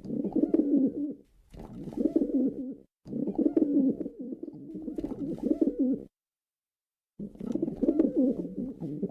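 Male pigeon cooing in repeated low, warbling phrases. The cooing cuts off abruptly about six seconds in, leaving a second of dead silence, then starts again.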